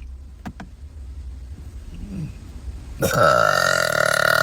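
A girl's long, loud, low-pitched burp begins about three seconds in and carries on past the end, after a quieter stretch with two small clicks.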